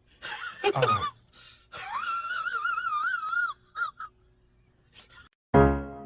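A wailing voice: a cry that falls in pitch, then one long wavering call. Piano music starts near the end.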